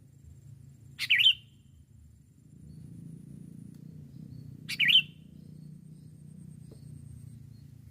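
Sooty-headed bulbul (kutilang) giving short, bubbly, wavering calls, twice, about four seconds apart, over a low steady rumble.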